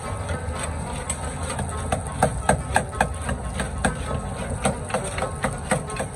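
Long metal ladle knocking and scraping against a karahi wok as meat and tomatoes are stirred, in irregular clanks about two to three a second, over a steady low rumble.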